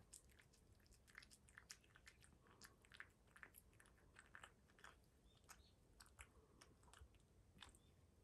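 A cat eating wet food from a bowl: faint, irregular wet clicks and smacks of chewing and licking, a few a second.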